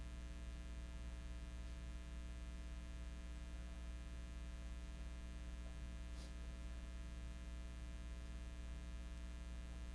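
Faint, steady electrical mains hum with a buzzy stack of overtones, unchanging throughout.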